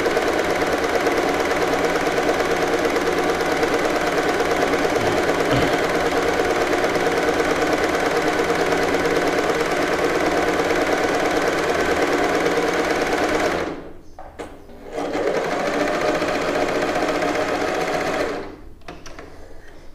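Usha Janome Stitch Magic electric sewing machine running steadily under foot control, stitching a pico (rolled) hem along the fabric edge with the pico foot. It stops for about a second about two-thirds of the way in, runs again, and stops shortly before the end.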